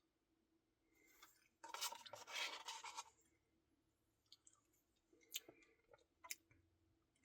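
Quiet eating of a Blizzard ice cream: a scraping, crunching burst lasting about a second, starting just under two seconds in, then a few soft clicks.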